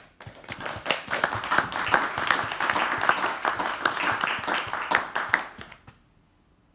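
Audience applause, building up within the first second and dying away about six seconds in.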